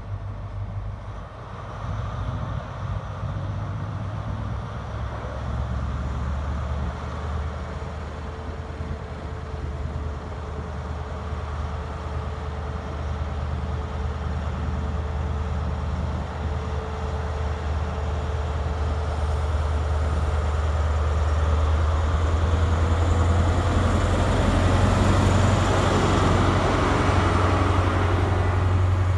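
Diesel engine of a Class 43 HST power car running under power as the train pulls along the platform, with a deep rumble and a faint steady whine. It grows louder as the power car comes past, then the coaches roll by.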